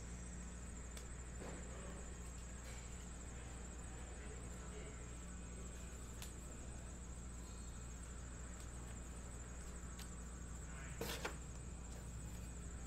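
Low, steady electrical hum with a few faint ticks, and one short knock about eleven seconds in.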